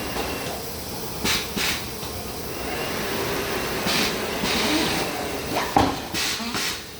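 Tyre-changing machine turning the wheel while its bead roller presses down on a low-profile tyre's top bead, with several short hisses and a sharp pop about six seconds in as the bead comes off the rim.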